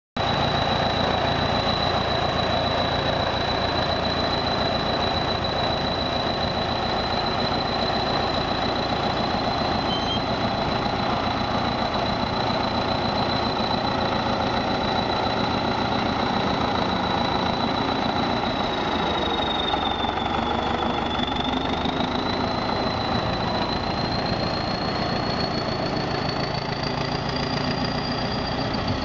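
Diesel engine of a ChTZ T-130/T-170-series crawler bulldozer running steadily as it pushes soil with its blade. A thin high whine sits over the engine, dipping and rising again about twenty seconds in.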